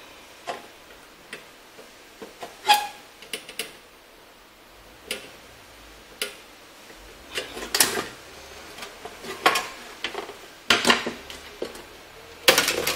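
Pliers and hands working at a monitor's sheet-metal board shield as it is taken apart: irregular metal clicks, taps and clanks, coming faster in the second half, with the loudest clatter near the end.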